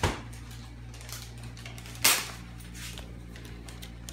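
A gift's packaging being torn open: one brief, loud rip about two seconds in, with small clicks and rustles around it, over a steady low hum.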